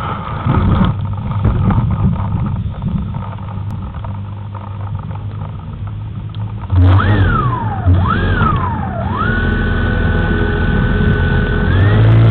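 Rustling and handling noise, then a model aircraft's motor whines up and down twice as the throttle is worked, holds a steady whine, and begins to rise again near the end as it throttles up.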